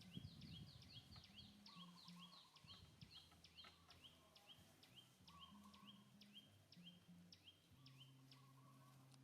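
Faint bird calls: a long run of short, high, falling chirps, several a second at first and slowing later, with softer warbling calls now and then.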